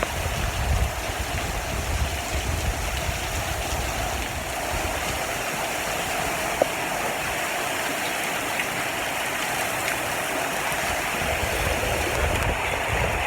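Heavy rain pouring down, a steady rushing hiss. A low rumble under it fades out about six seconds in, and there is a single sharp tick a little after that.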